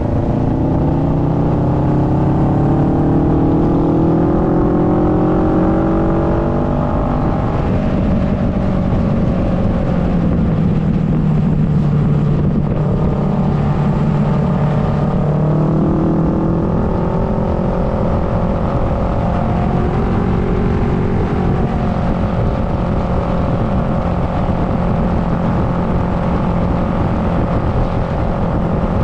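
2009 Kawasaki Versys 650's parallel-twin engine running under way, its pitch rising and easing off several times with the throttle and holding steadier near the end, over a constant rush of wind and road noise.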